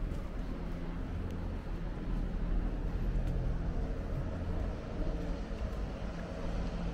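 A vehicle engine's steady low rumble with general city street noise around it.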